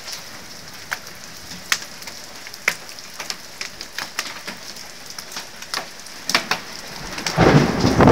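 Hailstones and rain striking outside: a steady patter with scattered sharp single knocks. About seven seconds in, a sudden, much louder blast of thunder breaks in.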